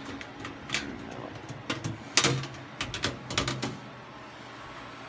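Sheet-metal cover of a PC server case being lifted off and handled: a series of metallic clicks and clunks, the loudest about two seconds in, then a cluster of them a second later, over a low steady hum.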